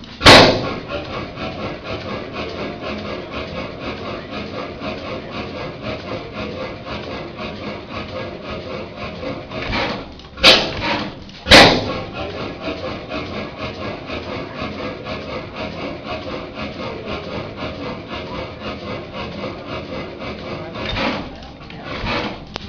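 A 35 hp Columbus Camstopper hit-and-miss engine running, with a steady mechanical clatter from the coasting engine between firings. It fires with a sharp, loud exhaust bang right at the start, then goes some ten seconds before firing twice about a second apart, as the governor lets it take a charge only when the flywheels slow.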